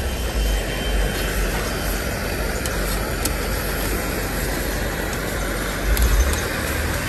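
Egg bhurji frying in a wide iron pan over a gas burner: a steady sizzle and burner rush, with a few light clicks of the steel spatula against the pan.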